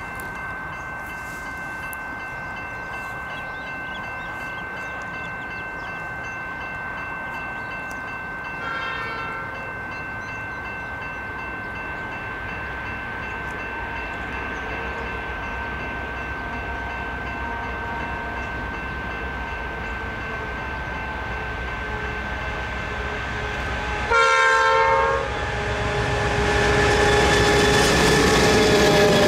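Multi-tone air horn of an approaching diesel-hauled heritage train, led by locomotive X31: a short, fainter blast about nine seconds in and a loud blast of about a second near the end. After it comes the rising rumble of the locomotives and wheels as the train arrives and passes.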